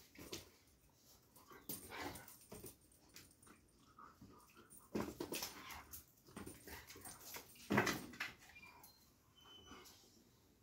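Doberman pinscher playing with a chew toy: a scatter of short, irregular dog noises, the loudest one about three quarters of the way through.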